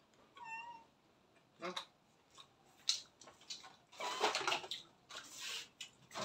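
A domestic cat meowing: a short, wavering high meow about half a second in and another later, among a few sharp clicks and rustling noises.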